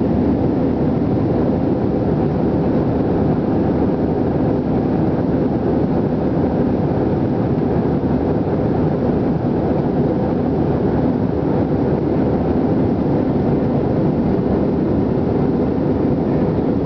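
Jet airliner cabin noise in cruise flight: a steady, even roar of engines and rushing air, heaviest in the low and middle range.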